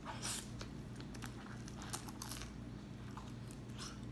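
Close-miked eating of cheese-sauced rotisserie chicken: soft wet chewing and biting, with scattered small clicks and crunches over a steady low hum.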